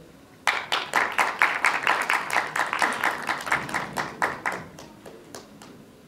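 Applause from a small audience: a few people clapping. It starts abruptly about half a second in and dies away over the last second or so.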